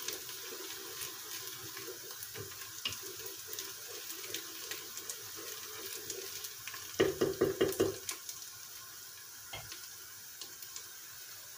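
Chopped onions sizzling in hot oil in a pan: a steady hiss with small crackles. About seven seconds in there is a short, louder burst of rhythmic scraping.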